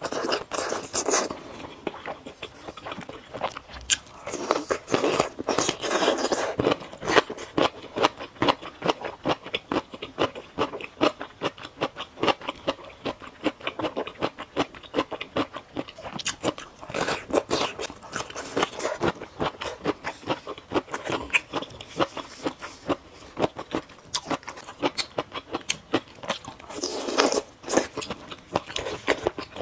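Close-miked eating of skewered oden from spicy broth: biting and chewing with a steady run of wet mouth clicks and smacks. Louder stretches come about a second in, at around five to seven seconds, around seventeen seconds, and near the end.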